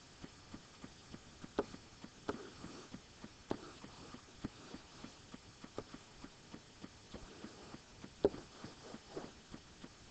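Faint light taps and clicks of a marker pen on an interactive whiteboard as shapes are drawn. The clicks come about three a second, with a handful of sharper, louder knocks among them.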